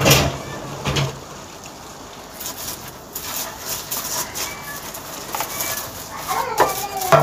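Kitchen clatter: a metal baking tray knocks twice, at the start and about a second in, then paper crinkles and rustles as the tray is lined.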